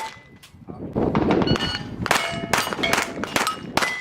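Rapid .22 rimfire pistol shots at steel targets, each crack followed by the ringing clang of a struck steel plate. There are about four in quick succession in the second half, after a brief lull near the start.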